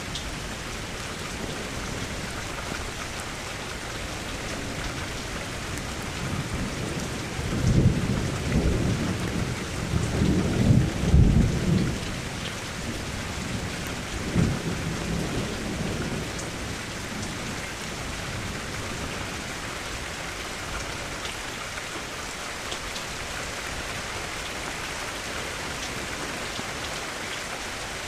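Steady rain falling, with a roll of thunder building about seven seconds in and rumbling for about five seconds, loudest in two swells, then a shorter rumble a couple of seconds later.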